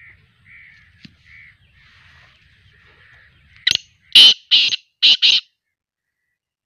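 Black francolin (kala teetar) calling: after a few faint soft notes, a short note and then four loud, harsh, grating notes in quick succession, starting about three and a half seconds in.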